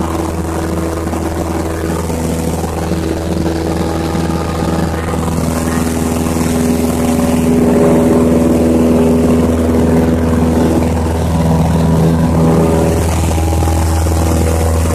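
Cessna's single piston engine and propeller droning steadily, heard from inside the cabin in flight; it grows a little louder from about five seconds in.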